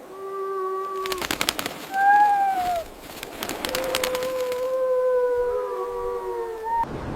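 Wolves howling: a long steady howl, a shorter one that arches higher and is the loudest, then a long howl joined by a second one near the end. Sharp cracks sound in the gaps between the howls.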